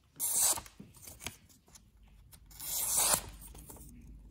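A Buck 133 folding knife's 7Cr17 steel blade slicing through a sheet of paper, two short hissing cuts about two and a half seconds apart. The blade cuts very well: it comes sharp from the factory.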